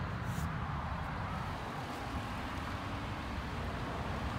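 Pickup truck engine idling, a steady low rumble with an even background hiss.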